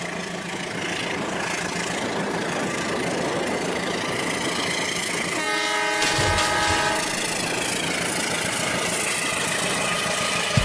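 Battery-powered toy trains running along plastic track with a steady whirring rattle; a train horn sounds for about a second and a half near the middle, and a low rumble comes in with it.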